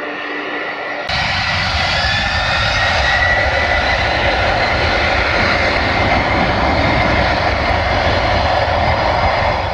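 Boeing 767 twin turbofan engines at high thrust on the takeoff roll: a loud, steady jet roar with a whine that rises in pitch. The roar gets suddenly louder about a second in.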